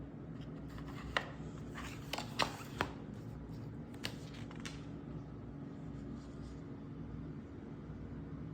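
Handling of the album's packaging: a handful of sharp clicks and taps in the first half, over a steady low hum.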